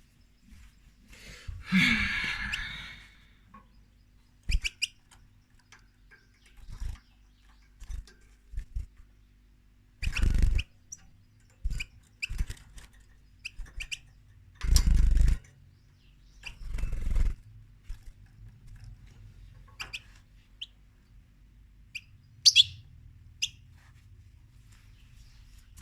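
Goldfinch bathing in a water dish: a few bursts of splashing and wing-fluttering, the main ones about a third, halfway and two thirds of the way through, with short high chirps between them.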